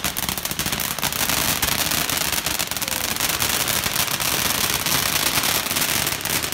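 Ground firework in the street crackling loudly as it sprays sparks: a dense, rapid run of sharp pops and crackles that starts abruptly and keeps going.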